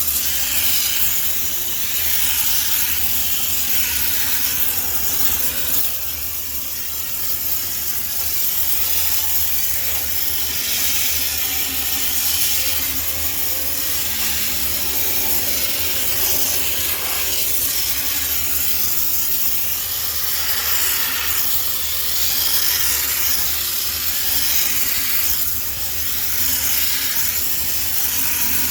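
High-pressure steam cleaner jetting steam in a steady hiss, swelling and easing every few seconds as the nozzle is worked over a washing machine, with a low steady hum underneath.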